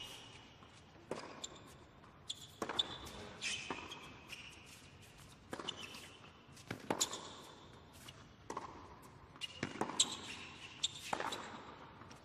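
Tennis rally on a hard court: a racket strikes the ball and the ball bounces, a sharp knock about every second, with short, high shoe squeaks on the court between shots.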